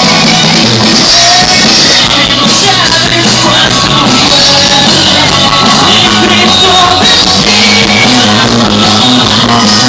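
Live rock band playing loud and distorted as heard on a phone microphone, with a voice singing or shouting over guitars and drums.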